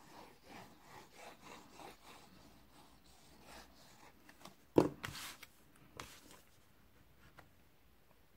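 Liquid glue bottle squeezed, its tip rubbing and scraping over cardstock in a quick series of small strokes. About halfway through comes a single sharp knock, followed by paper handling and a smaller click.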